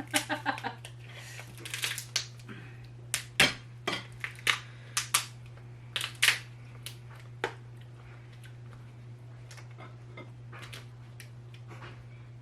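Lobster shells cracking and snapping as a cooked lobster is broken apart by hand, with shell pieces clicking against a plate: a quick run of irregular sharp cracks that thins out after about eight seconds.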